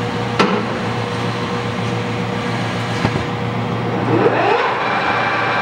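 American Tool Works heavy-duty engine lathe running: a steady hum of the 15 hp drive with two sharp metal clunks from the headstock levers, then the spindle spins up, a rising whine about four seconds in that settles into a steady, higher geared running sound.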